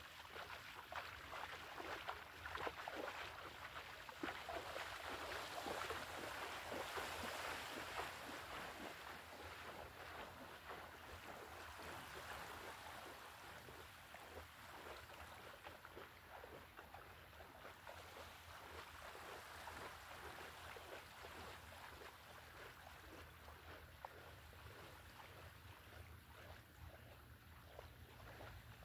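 Shallow seawater splashing and lapping as a person wades out through calm shallows, loudest in the first few seconds and fading as the splashing moves away, over a faint low wind rumble.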